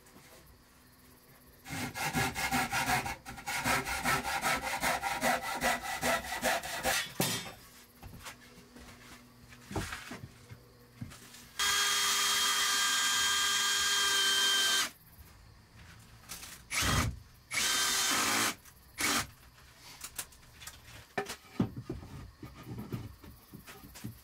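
Wood being sawn by hand in a run of quick, even strokes, then a cordless drill driving a screw into pallet-board cladding in one steady run of about three seconds, followed by two short bursts of the drill and a few knocks of boards being handled.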